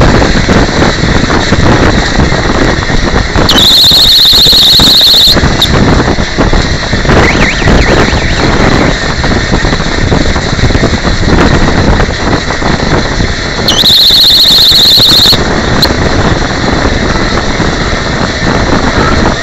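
Loud, steady clattering road and body noise from inside a human-powered pedal car at racing speed. Two high, steady squeals cut through it, each lasting under two seconds: one about three and a half seconds in and another about ten seconds later.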